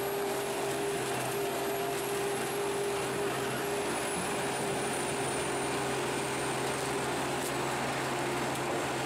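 Morbark HT1684 Predator stump shredder, powered by a Caterpillar C12 six-cylinder turbo diesel, running steadily. It gives an even drone with a steady low hum and a faint high whine that drifts slightly lower.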